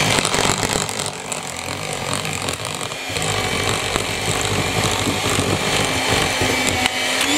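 Electric hand mixer running, its twin beaters whisking a thick cake batter in a plastic bowl.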